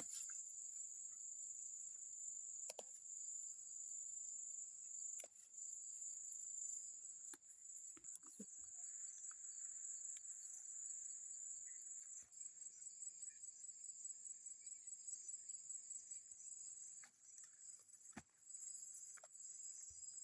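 Crickets trilling, a steady high-pitched chirring that turns into a fast pulsing trill about twelve seconds in, with a few faint clicks.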